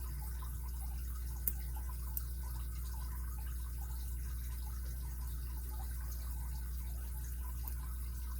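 Faint ticks and scratches of a lock pick working the pin stack of a six-pin Kryptonite padlock under tension, with two sharper clicks about one and a half and two seconds in, over a steady low hum.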